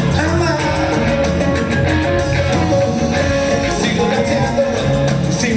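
Rock band playing live: electric guitar over a steady drum beat, with keyboard.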